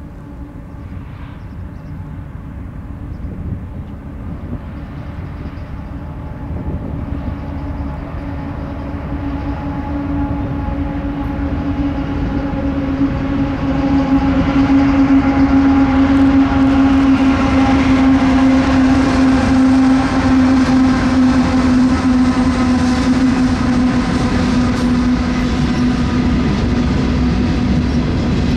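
Union Pacific GE diesel locomotives (an ET44AH and an ES44AC) leading a train toward the listener, the engine rumble growing louder for about the first half and then holding steady. A steady droning tone comes in about a third of the way through and stays strong to the end.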